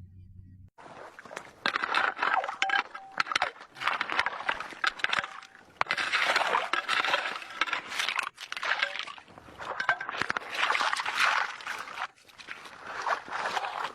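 Snow and ice crunching and scraping in repeated bursts about every two seconds, with many sharp crackles.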